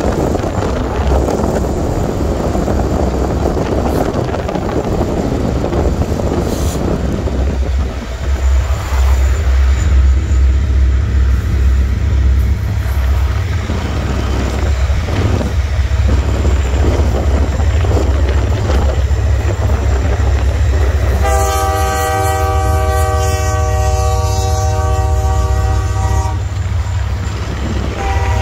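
Union Pacific freight locomotive's air horn sounding one long blast of about five seconds, three-quarters of the way in, over a steady low rumble, then starting another blast near the end.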